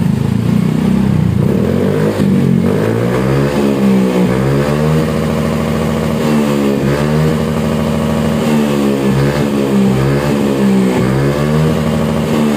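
Yamaha Mio Soul GT 125 scooter's single-cylinder 125 cc four-stroke engine running through a newly fitted SKR standard-racing aftermarket muffler, revved over and over, the pitch rising and dropping back every second or two. A sound check of the new exhaust's note.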